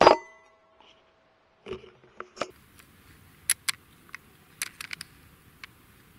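A single shot from a .177 Daystate Delta Wolf PCP air rifle: a sharp crack that rings briefly with a metallic tone. A few knocks and a run of sharp clicks follow as the rifle is handled and cycled.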